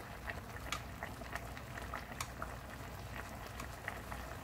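Soy-and-chili braising sauce simmering over medium-low heat in a pot of flounder and zucchini: steady bubbling with many small, irregular pops.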